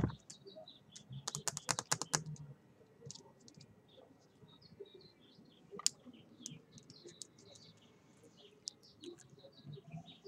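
Light clicks and taps from a Chihuahua moving about close to the microphone on a tiled floor, its claws tapping, with a quick run of taps just over a second in and one sharp click midway. Faint bird chirps in the background.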